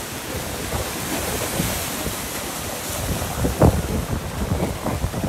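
Wind buffeting the microphone: a steady rush with low rumbling gusts, the loudest about three and a half seconds in and again near the end.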